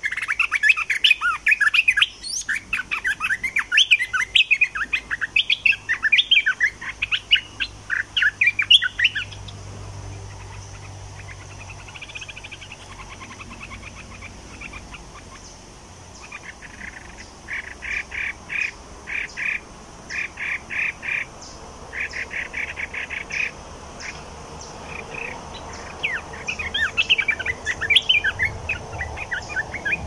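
Olive-winged bulbuls singing: dense, bubbling chattering for the first nine seconds, then a quieter stretch. After that come short quick phrases repeated about once a second, and more chattering near the end.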